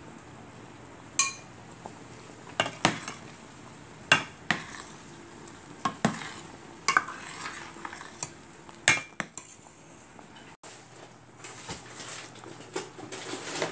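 Metal ladle clinking against a stainless steel soup pot as the soup is stirred: about a dozen sharp, irregular clinks, the first about a second in the loudest and ringing briefly. Near the end the clinks give way to a softer, irregular crackling patter.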